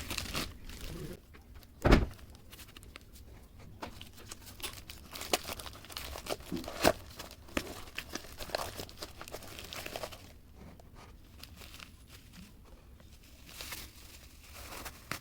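Irregular handling noises, light crinkling and scattered taps and clicks, with one loud knock about two seconds in.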